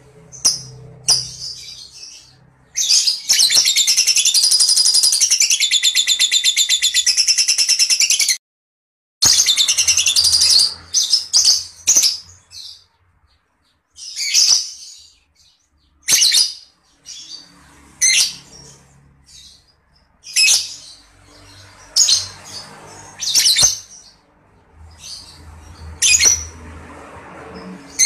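Lovebird calling: a long, fast, high-pitched chattering trill of about five seconds, then another short chatter after an abrupt cut. After that come single sharp, shrill calls spaced a second or two apart.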